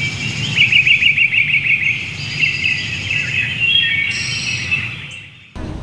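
Birds chirping and singing, several overlapping calls with quick warbling trills over a steady low rumble, fading and then cutting off near the end.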